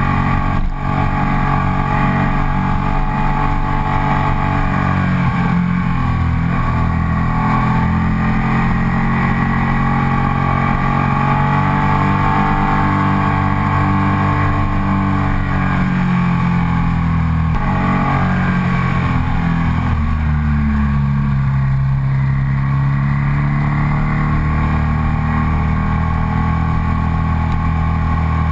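Ducati Sportclassic Sport 1000's air-cooled L-twin engine running hard as the motorcycle climbs uphill, its pitch rising and falling repeatedly with the throttle, with a brief break about a second in.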